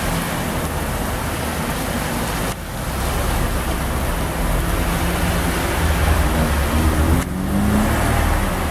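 Heavy rain pouring down steadily, with cars driving through on a wet street, their engines and tyres on the wet road heard under the rain. The sound briefly drops out twice.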